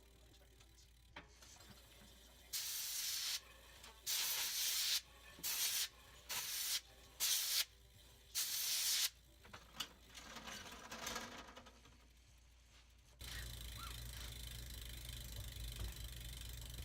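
Aerosol can sprayed onto a bicycle chain in about six short hissing bursts, then a longer weaker one, as the new chain is cleaned of its factory grease. A steady low hum takes over about two-thirds of the way in.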